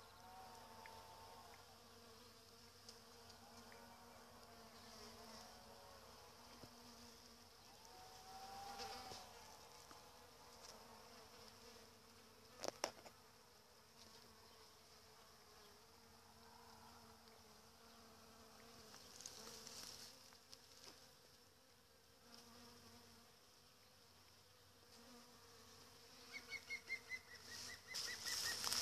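Faint buzzing of bees working apricot blossom, a wavering hum that swells as a bee flies close about a second in and again around nine seconds. A sharp click just before halfway, and rustling with ticks building near the end.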